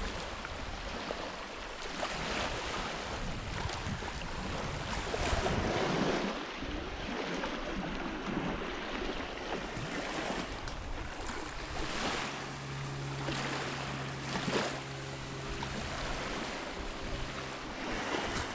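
Waves washing on a bay shore, with wind noise on the microphone. About two-thirds of the way through, a steady low hum joins in for several seconds.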